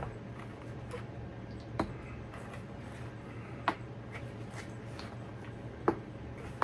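Objects being handled: a few scattered light clicks and taps, four of them sharper than the rest, over a low steady hum.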